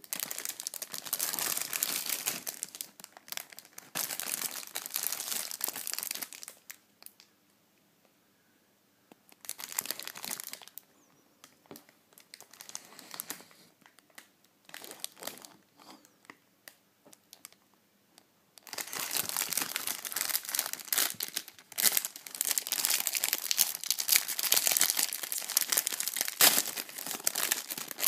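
Plastic wrapper of a cardboard pack of mini muffins crinkling loudly as it is handled and turned over, in bursts with quiet gaps. From about two-thirds of the way in the crinkling becomes continuous as the plastic is pulled and torn open.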